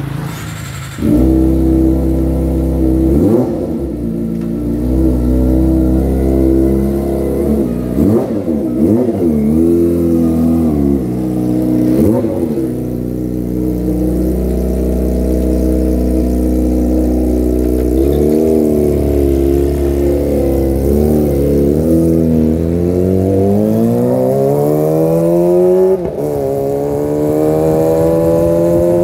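Sport motorcycle's engine through a Yakuza aftermarket exhaust, being revved in several sharp blips, steady between them, then pulling away with the pitch rising for several seconds near the end.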